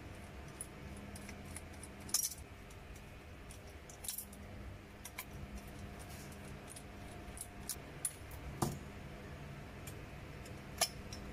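Small screwdriver working the screws out of a model car's body shell, with scattered light clicks and scrapes of metal tool on screw and parts, a few sharper clicks among them.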